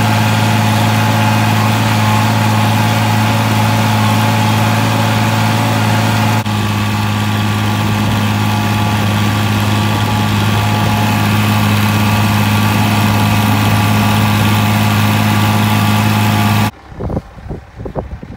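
International Harvester tractor's engine running steadily under load while pulling a field cultivator, heard from the operator's seat. It cuts off abruptly near the end, leaving faint uneven rustling.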